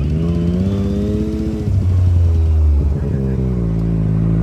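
Four-wheeler (ATV) engine revving as it rides: the pitch climbs over the first second and a half, then drops about three seconds in and holds steady.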